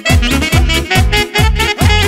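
Instrumental passage of a Romani dance song (manele party music): a fast, steady drum beat, about two and a half to three beats a second, under a melodic lead line.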